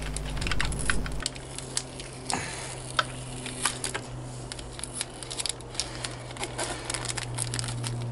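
Clear plastic packaging being handled: the rigid plastic cover of a model locomotive box and a small plastic bag of detail parts crinkling, with many small irregular clicks and crackles.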